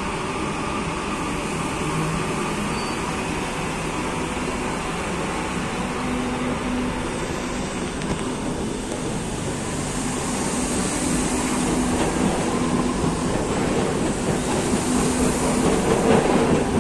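Madrid Metro series 2000B electric train pulling out of the station and running past, a steady rumble of wheels and motors that grows louder over the second half as the cars go by.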